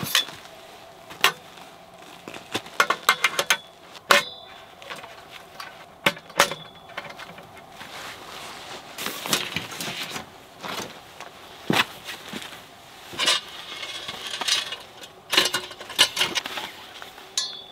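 Metal camping gear being handled and set up: an irregular run of sharp clicks, knocks and clinks from metal poles and a cot frame, a few of them with a short metallic ring.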